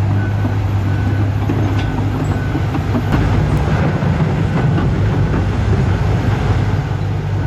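Toy excavator's built-in electronic sound effect: a steady engine rumble with a strong low hum and a faint, regular ticking, played loudly through the toy's small speaker.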